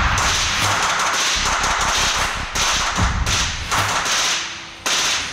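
Rapid suppressed gunfire from two guns at once, a 9mm MP5 on a three-lug suppressor mount and a 16-inch 5.56 rifle with an Omega suppressor, the shots running together in the echo of an indoor range. The firing breaks briefly about halfway through and again near the end.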